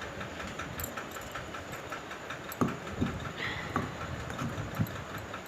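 Whole dry spices being pounded with a pestle in a mortar: a run of soft knocks, with a few louder thuds near the middle.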